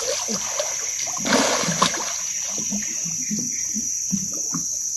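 Water splashing and sloshing as a hooked tapah catfish thrashes at the surface beside the boat while being hauled in on a hand line, with the biggest splash about a second in. A steady chirring of insects runs underneath.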